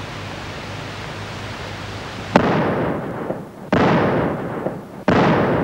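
Three rifle shots fired in quick succession as a send-off for departing emigrants. Each is a sudden crack with a long fading echo, the shots just over a second apart, starting about two seconds in, over steady film hiss.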